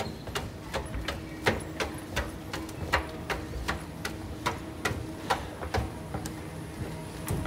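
Quick running footsteps, a sharp even step about two and a half times a second.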